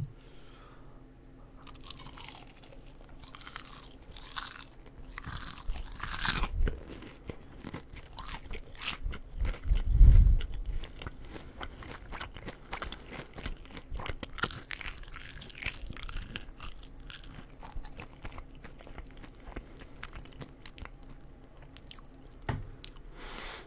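A person eating close to the microphone: crunchy bites and chewing of pizza and onion rings, with many short crunches and mouth clicks. There is one loud low thump about ten seconds in.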